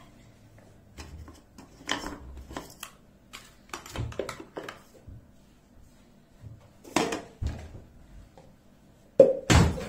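A wet cat being handled in a bathtub: scattered knocks and scrapes against the tub, with a louder burst about nine seconds in.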